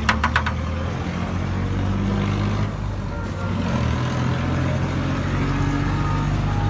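Honda 70 single-cylinder four-stroke motorcycle engine running steadily, its speed stepping up twice and settling higher about four seconds in. A quick run of sharp metallic taps comes right at the start.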